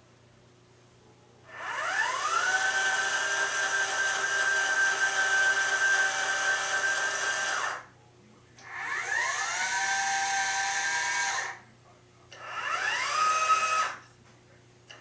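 Meade LX200R telescope's drive motors slewing in three runs, each a whine that rises in pitch as the motor speeds up and then holds steady; the first run lasts about six seconds, the other two are shorter. It is the mount moving to find its home position during sensor calibration.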